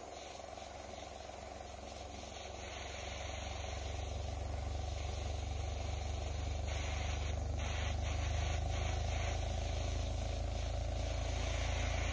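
Steady low hum, growing gradually louder, from a KYG-SE905 model Stirling engine running under a gas torch flame. The engine gives no mechanical rattle.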